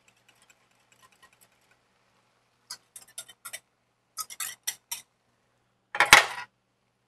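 A utensil clicking and scraping against a small green bowl as the sauce mix, its cornstarch settled at the bottom, is stirred and scraped out into the pan: faint ticks at first, then two quick runs of sharp clinks. About six seconds in, a louder clatter as the bowl is set down on a metal sheet tray.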